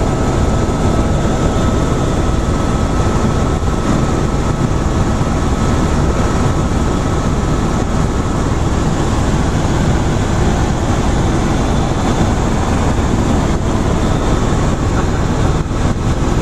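Helicopter cabin noise in flight: the loud, steady din of the rotor and engine heard from inside, heavy in the low end, with a faint steady whine that fades out about five seconds in.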